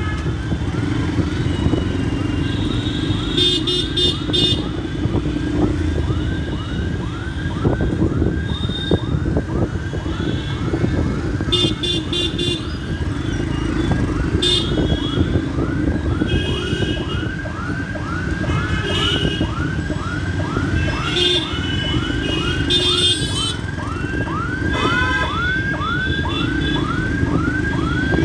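Yamaha FZ-S single-cylinder motorcycle engine running while riding through city traffic, with a siren sounding a fast yelp (a falling tone about twice a second) throughout. Short high beeps come several times over the traffic noise.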